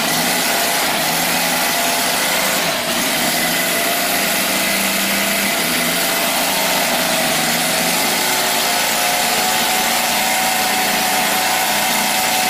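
Seven-cylinder four-stroke radial model-aircraft engine running steadily with the propeller turning. The engine is new, still being run in and tight, so it is not yet giving full performance.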